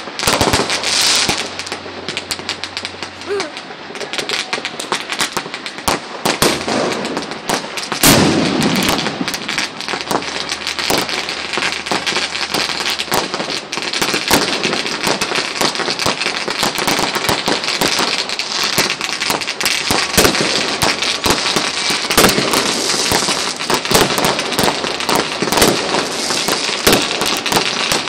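Fireworks going off: a dense, unbroken crackle of many small bangs, with one louder bang about eight seconds in.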